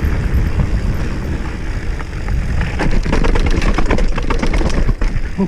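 2019 GT Sensor Expert mountain bike riding downhill on a dirt trail: a steady low rumble of wind and tyres, with a burst of rapid rattling and clatter from about three to five seconds in as the bike runs over rough ground.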